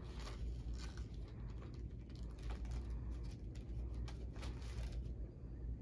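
Paper wrapper of a sterile catheter kit being unfolded by hand, crackling and rustling in irregular small clicks over a steady low hum.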